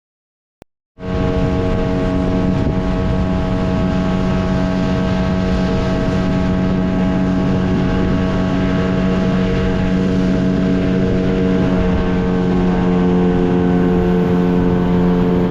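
Outboard motor on a small aluminium tinny running at a steady cruising speed, with water and hull noise. It cuts in suddenly about a second in and holds one unchanging pitch.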